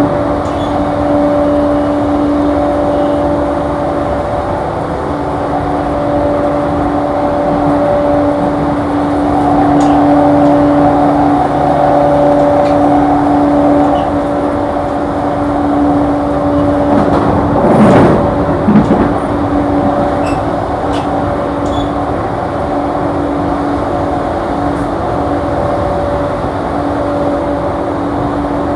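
Running noise of a JR East E235-series electric train heard from inside the car: steady wheel-on-rail rumble with a continuous humming tone. A brief louder rush comes about two-thirds of the way through.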